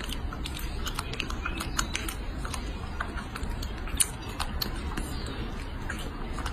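Baby monkey biting and chewing a strawberry: a run of irregular wet smacking clicks, one sharper than the rest about four seconds in, over a steady low hum.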